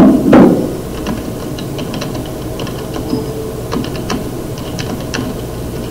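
Typing on a computer keyboard: irregular, scattered key clicks.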